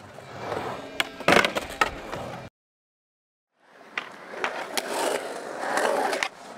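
Skateboard on a concrete skatepark: urethane wheels rolling with several sharp clacks of the board about a second in. The sound cuts to dead silence for about a second. It then comes back as rolling that builds into a rough scrape of the board on the bowl's coping.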